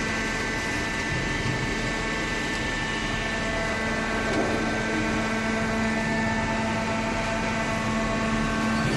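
Cardboard shredding and baling machinery running at a steady level: a continuous hum with several steady tones over mechanical noise.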